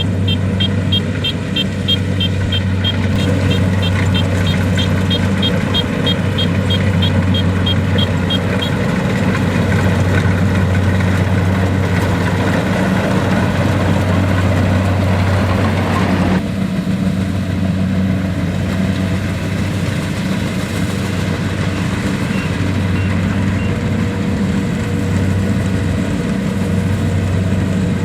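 Kubota DC-70 Plus combine harvester's diesel engine running steadily under harvesting load. A rapid high beeping sounds about three times a second for the first eight seconds or so. About sixteen seconds in, a higher rushing layer of the machine's noise cuts off suddenly while the engine runs on.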